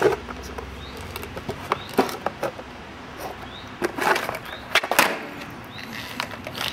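Freestyle skateboard on concrete during flatland footwork tricks: wheels rolling and the deck clacking sharply as it is flipped and lands, with clusters of clacks about two seconds in and again four to five seconds in.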